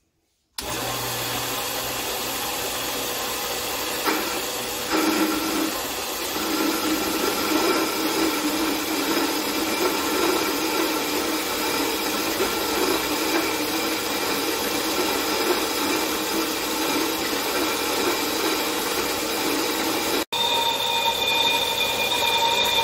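A 4x6 horizontal metal-cutting bandsaw switches on about half a second in and runs steadily with a whine. From about five seconds in its blade is cutting through aluminum stock.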